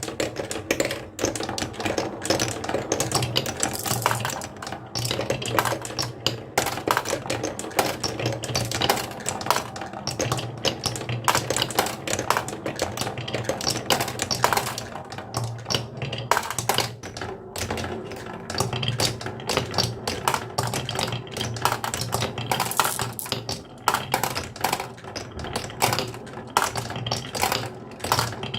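Many marbles rolling and clattering down a wooden marble run, a dense stream of rapid clicks and knocks over a low rolling rumble.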